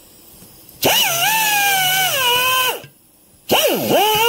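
Power tool spinning a brass wire brush against a Homelite XL922 chainsaw crankcase, scrubbing off corrosion scale: a high whine with a scraping hiss. It runs for about two seconds, stops, then starts again for a shorter run whose pitch dips twice as the brush is pressed in.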